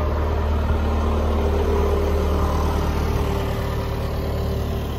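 A steady low engine drone, like a motor idling, holding a few steady tones.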